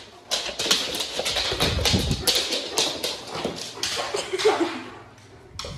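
Dog claws clicking quickly and irregularly on a hardwood floor as two dogs, one a Bernese mountain dog, trot and run about. The clicking thins out and goes quieter about five seconds in.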